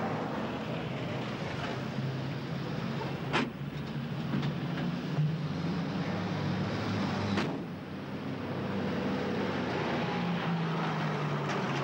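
Small Austin van's engine running as it pulls in and stops, over street traffic noise, with two sharp clunks: one about three seconds in and another about seven seconds in, the second fitting the van's door being shut.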